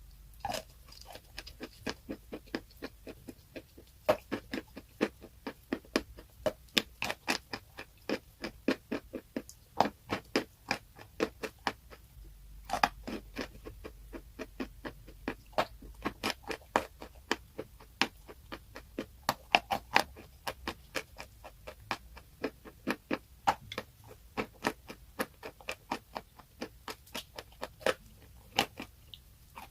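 Something brittle being bitten and chewed close to the microphone: a steady run of crisp crunches, a few every second, with a couple of short pauses.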